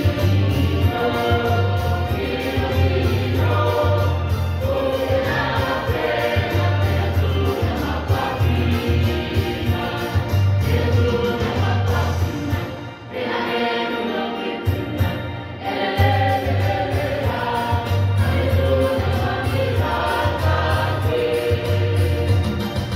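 Choir singing together, with a short lull about halfway through before the singing resumes.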